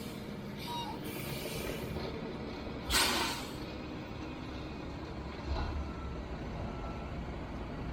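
Diesel engine of a loaded log truck running steadily in low gear. A short air-brake hiss comes about three seconds in, and the engine grows louder at about five and a half seconds as it pulls.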